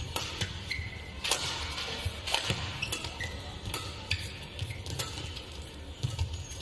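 Badminton rally: racket strings hitting the shuttlecock as sharp clicks, roughly once a second, with a couple of short squeaks from shoes on the court.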